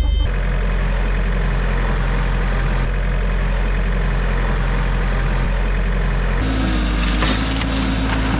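Heavy vehicle's engine running steadily under a rough, gritty noise. About six and a half seconds in, the engine note shifts higher, and the gritty noise grows louder just after.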